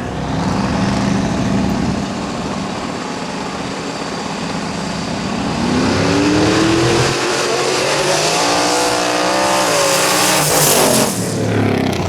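Drag-racing street car accelerating hard down the strip, its engine note climbing in pitch at the start and climbing again about halfway through after a gear change, then falling away near the end.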